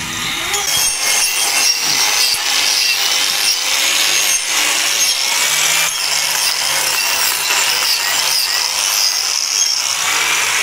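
A hand-held power hoof-trimming tool fitted with a chainsaw-type cutting disc, grinding and rasping steadily through the overgrown horn of a malformed cow hoof.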